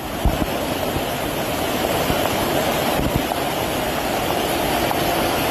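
Torrential rain pouring down on a flooded street, a steady rush of noise, with a few low thumps near the start and about three seconds in.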